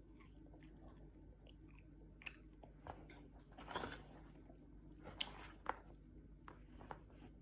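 Faint eating sounds: a person chewing food close to the microphone, with scattered mouth clicks and a few louder crunches a little past the middle.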